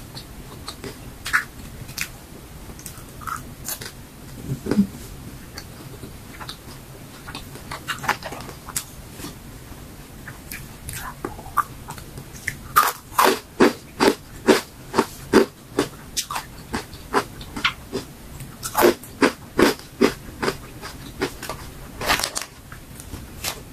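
Crunching and chewing of crisp dried fruit and vegetable chips: scattered single bites at first, then a fast run of crunches, about three a second, from about halfway, and another run near the end.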